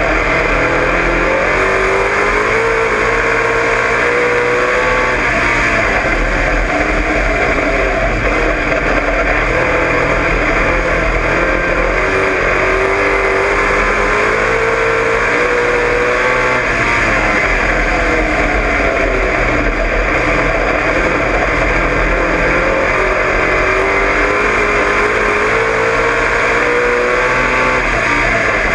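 Dirt-track race car engine heard from inside the cockpit, running hard at racing speed. Its pitch climbs along each straight and drops back for the turns, about every ten seconds, over a constant loud rush of engine and wind noise.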